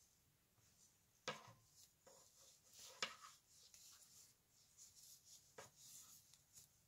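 Near silence with faint hand-knitting sounds: wooden knitting needles click together three times, with soft rubbing of yarn on the needles in between.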